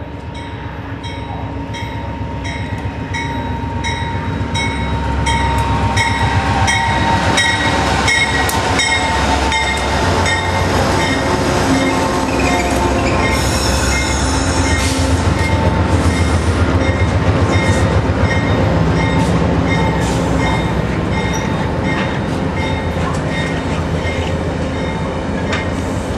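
A VIA Rail passenger train arrives along the platform, growing louder as it approaches. Wheels click steadily over the rail joints, a low rumble runs under them, and a thin high squeal comes from the running gear as the stainless-steel coaches roll past.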